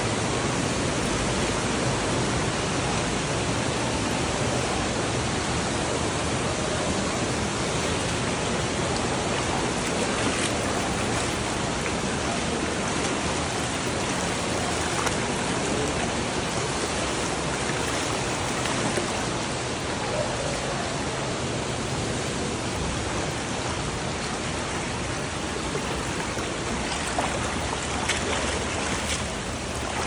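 Shallow stream rushing steadily over rocks, with a few brief splashes from wading through it.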